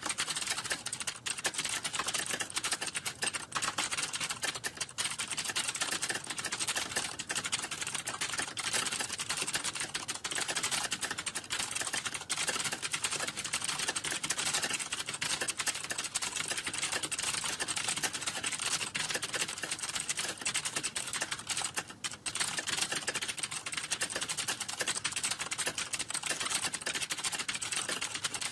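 Fast, continuous typing on a computer keyboard: a dense run of key clicks, with a brief pause about 22 seconds in.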